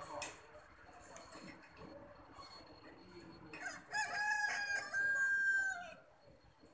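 A rooster crowing once, starting about three and a half seconds in and lasting about two seconds, ending on a long held note that drops away.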